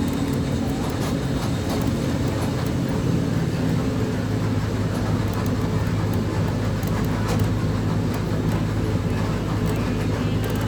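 A vehicle's engine running steadily with a low drone and road noise, as from riding in it.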